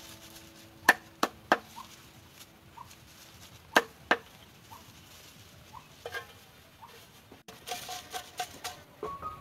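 A cleaver chopping through a bundle of long green leaves onto a wooden stump chopping block, giving sharp single chops: three in quick succession about a second in, then two more around four seconds. Faint short chirps come between the chops, and near the end the cut leaves rustle as they are handled in a metal pot.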